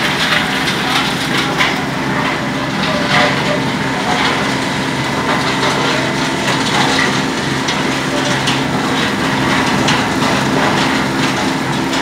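Gypsum powder plant machinery running: a steady mechanical drone with constant irregular crackling and knocks, as of gypsum rock being crushed and ground.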